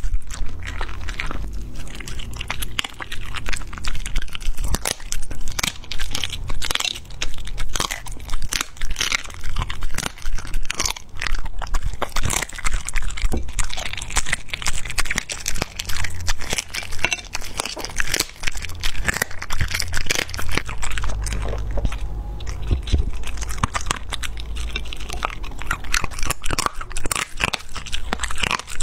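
A Border Collie chewing raw poultry meat and bone, with dense, irregular wet crunches and cracks as the bone breaks between its teeth.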